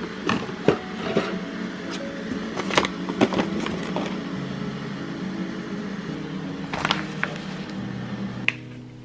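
Tea boxes and a paper tea pouch rustling and knocking as they are rummaged through and pulled out of a drawer. Most of the clatter falls in the first four seconds, with a few more taps near the end, over background music with held notes.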